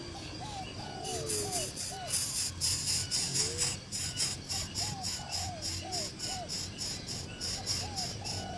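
Short, repeated low bird-like calls, each a quick rising-and-falling note, with background music carrying a steady shaker-like beat of about three to four strokes a second coming in about a second in.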